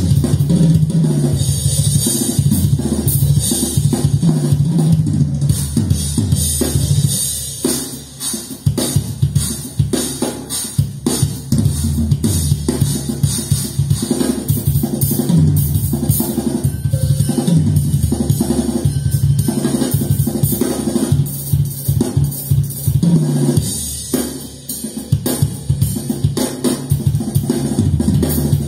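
Drum test recording played loud through Infinity Kappa 7 floor-standing loudspeakers: a drum kit with bass drum, snare and cymbals, the bass drum strongest. The level drops briefly about eight seconds in and again about twenty-four seconds in.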